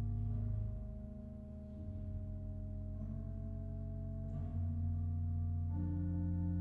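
C. B. Fisk pipe organ playing slow, held chords on a soft registration, the harmony shifting every second or two. It thins briefly about a second in, then a fuller chord enters near the end.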